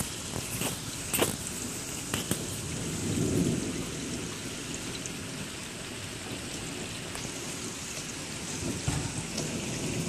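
Heavy rain falling steadily in a thunderstorm, with a few sharp drip taps close by early on and a brief low rumble of thunder about three seconds in.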